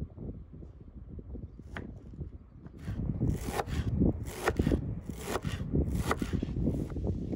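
Kitchen knife chopping a bunch of fresh dill on a wooden cutting board, a sharp chop about twice a second starting about three seconds in, over a low background rumble.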